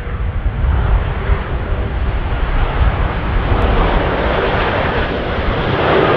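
Airbus A330-243 on final approach with its gear down, its Rolls-Royce Trent 700 engines giving a steady jet roar with a heavy low rumble that grows louder as the airliner draws near. Faint steady hum tones come in near the end.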